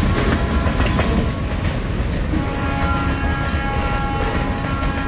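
Freight train's boxcars rolling past on the rails, a heavy steady rumble of wheels that eases slightly as the end of the train draws away. From about halfway a steady several-tone whine joins in.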